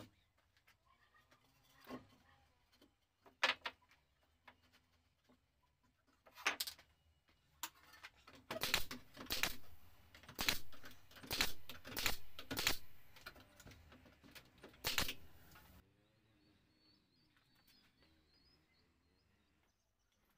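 Electric drill driving screws through a board into pallet wood in a run of short bursts, about eight in all, after a few knocks of the wood being set in place.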